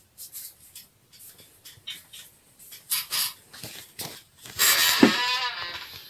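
Rustling and clicking handling noises, then a louder scraping sound lasting about a second with a brief falling tone about five seconds in.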